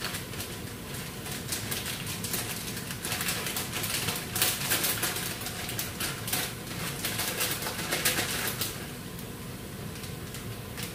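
Plastic packaging rustling and crinkling, with light clicks and knocks, as dried stockfish is taken out of its bag; the rustling eases off in the last couple of seconds.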